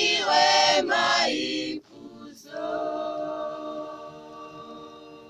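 Mixed choir singing a Kinyarwanda gospel hymn a cappella: quick sung phrases, a brief break about two seconds in, then one long held closing chord that slowly fades.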